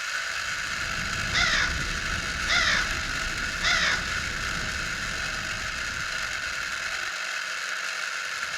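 Three crow-like caws about a second apart over the steady whir of a spinning fidget spinner.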